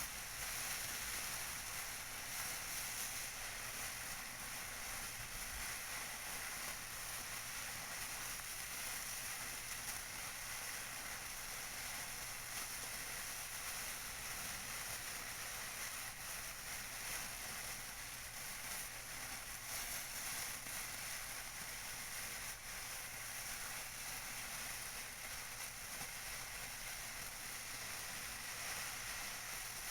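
Tissue paper crinkled and rustled by hand: a steady, unbroken crackle with no pauses.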